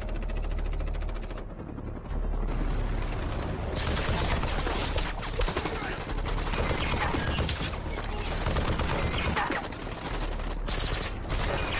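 Film action sound: a helicopter's rotor chopping, then sustained bursts of automatic gunfire from about four seconds in, aimed at the helicopter.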